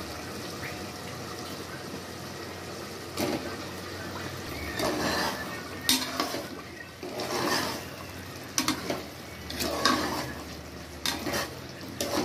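Potato chunks dropping into a pot of thick meat curry and a metal ladle stirring them through it in an aluminium pot: a string of irregular wet slops and scrapes, roughly one a second from about three seconds in.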